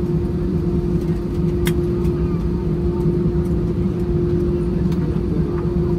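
Airbus A320 cabin noise while taxiing: the engines at taxi idle give a steady low rumble with a constant hum over it. A faint click comes just under two seconds in.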